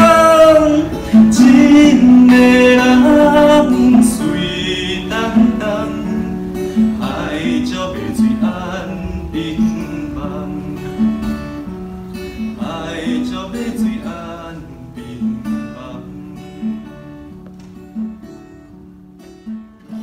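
A song with singing and acoustic guitar. The voice is loudest in the first few seconds, then the plucked guitar notes carry on as the whole song slowly fades out.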